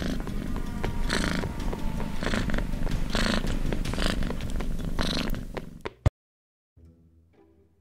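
Loud cat purring: a dense low rumble with a swell about once a second, which fades and cuts off with a sharp click about six seconds in. Faint music comes in near the end.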